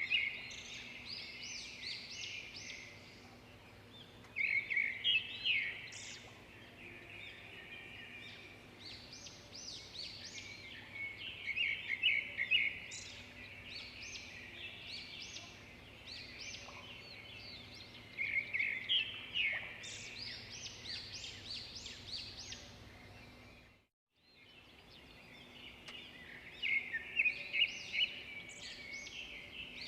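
Birds singing: bouts of quick, high chirping song come back every six or seven seconds over a faint steady background hum. The sound cuts out completely for about half a second near 24 seconds in.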